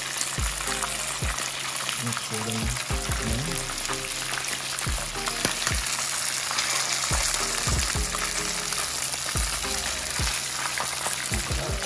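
Whole fish shallow-frying in hot oil in a pan, the oil sizzling steadily, with scattered low knocks as a fork shifts the fish in the pan.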